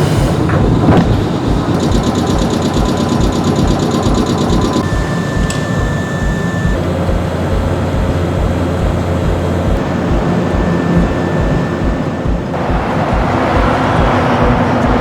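Large diesel engine running steadily, with an even low throb of about three to four pulses a second under a constant hum.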